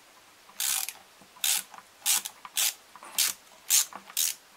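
Screwdriver turning out the cover screws of an Audi vacuum pump, in about seven short scratchy bursts roughly half a second apart, one with each turning stroke.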